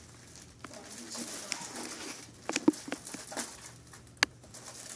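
Plastic packaging being picked at and pulled open by hand: light crinkling with a few sharp snaps, the loudest about two and a half seconds in and another a little after four seconds.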